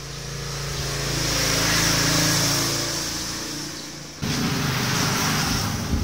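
A motor vehicle's engine passing by, a steady hum that swells and then fades over about four seconds. About four seconds in it breaks off abruptly into a rougher engine rumble.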